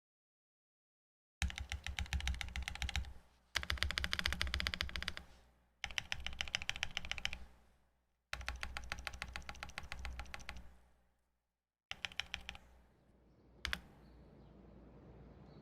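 Modifier keys on a Parallel Portal 65% mechanical keyboard, with factory-lubed Prevail Nebula switches on an FR4 plate over soft 30A o-rings, being pressed in five quick runs of rapid keystrokes with short pauses between them. After the runs comes a single click and then a faint hiss.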